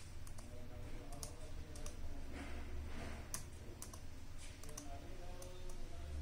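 Keys on a Dell Latitude laptop keyboard pressed one at a time, a series of sharp, irregularly spaced clicks, as the BIOS menu is stepped through.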